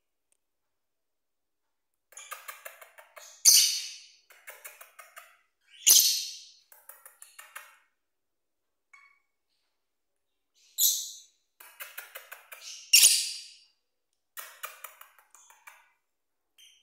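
Small pet parrots calling: four loud, shrill chirps, with runs of fast clicking between them.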